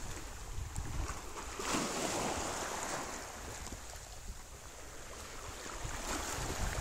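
Small waves washing gently over sand and rocks at the water's edge, swelling about two seconds in and again near the end, with light wind rumbling on the microphone.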